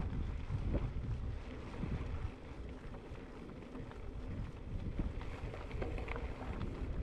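Wind buffeting the microphone of a camera on a moving mountain bike: a low rumble that swells and eases in gusts.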